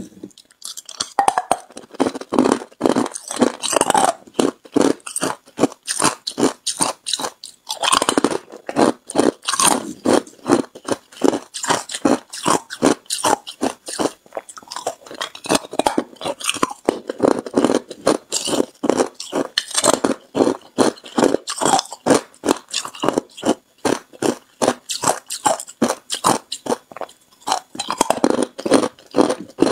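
Crushed ice being chewed close to the microphone: a steady run of loud, sharp crunches, several a second, with a few short breaks.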